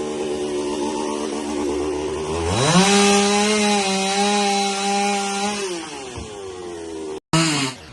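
Two-stroke chainsaw running, revved up sharply about two and a half seconds in, held at high revs for about three seconds, then easing back down. Near the end the sound cuts out for a moment, then comes back as a brief loud burst with the revs falling.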